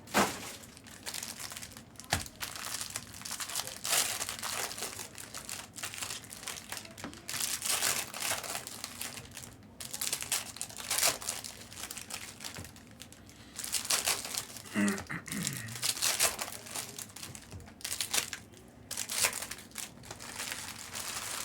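Plastic wrapping and trading-card packs crinkling and tearing as a sealed hobby box of basketball cards is unwrapped and its packs ripped open, in irregular bursts of crackling.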